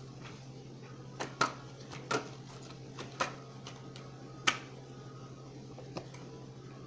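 Oracle cards being handled on a table: about six short, sharp taps and snaps, spaced irregularly, the loudest about four and a half seconds in, over a steady low hum.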